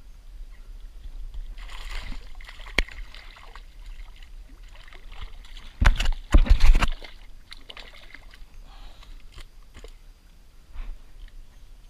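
Water sloshing against a kayak hull, with a loud double splash about six seconds in as the water boils up in a swirl beside the boat. A single sharp knock on the kayak comes near three seconds in.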